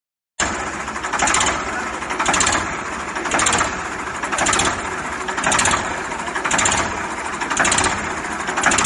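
A saw cutting through wood, loud and rasping, swelling in a steady rhythm about once a second. It cuts in suddenly just after the start.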